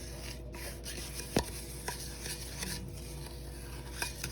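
A utensil stirring and beating butter and jaggery powder in a bowl, a steady scraping with a few sharp clicks against the bowl, the loudest about a second and a half in.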